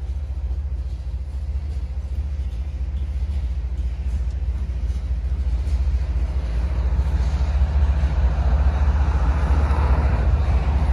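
Covered hopper cars of a freight grain train rolling past close by: a steady low rumble of steel wheels on rail, growing louder and brighter in the second half.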